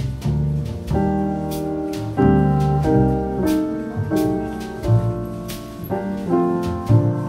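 Background music: a light, jazzy piano tune, its chords changing every half second or so over a low bass line.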